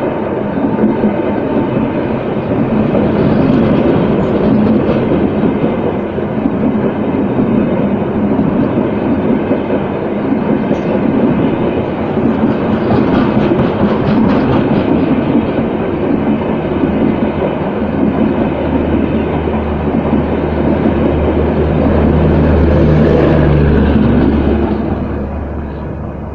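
A train running on rails: a loud, steady noise that goes on throughout, with a low hum coming in about two-thirds of the way through and fading near the end.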